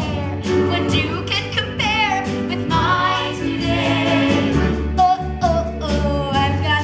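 A woman singing lead in an upbeat musical-theatre song, with live band accompaniment of steady bass and drums.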